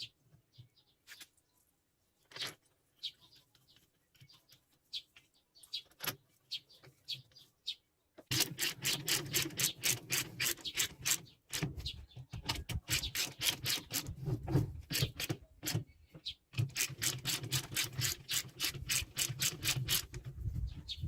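Scattered light clicks and taps, then from about eight seconds in a fast run of repeated strokes, about six a second, from hand work on an old UAZ gearbox part. The run stops briefly twice.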